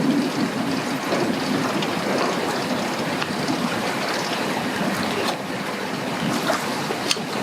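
Strong wind buffeting the microphone over choppy water, a steady rushing noise.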